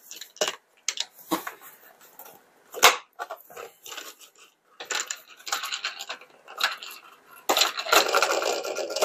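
Plastic toy van handled with a few light clicks and knocks, then its plastic wheels spun by hand, a dense rattling whir from about five seconds in that is loudest near the end.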